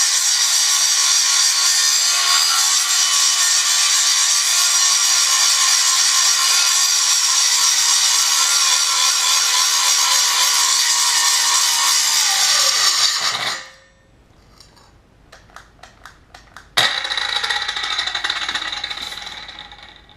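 Chicago Electric 7-inch angle grinder grinding metal, a steady loud grind that winds down with a falling pitch and stops about 13 seconds in. A few clicks follow, then the grinder starts again abruptly near the 17-second mark, runs briefly and fades. The owner calls its performance pathetic for a 7-inch grinder and suspects the motor is too weak for the bigger wheel.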